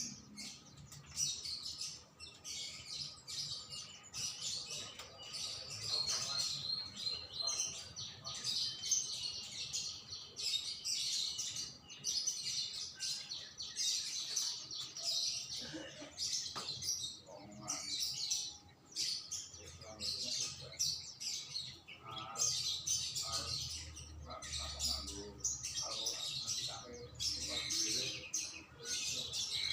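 Songbirds chirping and twittering continuously in rapid, high-pitched runs of notes and trills.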